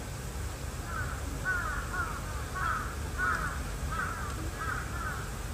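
A crow cawing in a quick series of about eight caws, starting about a second in, over a steady low background rumble.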